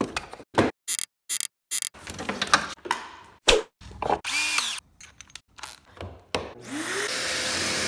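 Cordless drill drilling pocket holes and driving screws into wood, heard as a string of short separate bursts; near the end the drill spins up with a rising whine and runs steadily.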